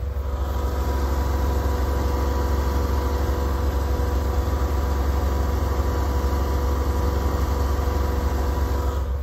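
A refrigerated trailer's reefer unit running steadily: a low, even diesel drone with a thin steady tone on top. This is a normal reefer running, one that is not unusually loud.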